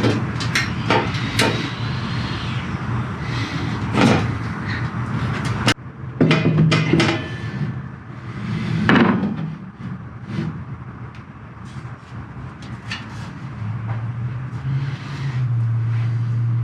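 Scattered knocks and clanks of metal bandsaw stand parts being handled and fitted together, the loudest about four, six and nine seconds in, over a low steady hum.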